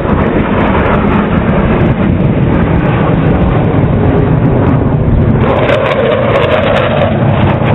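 Loud, steady roar of jet aircraft engines, with a droning tone joining about five and a half seconds in.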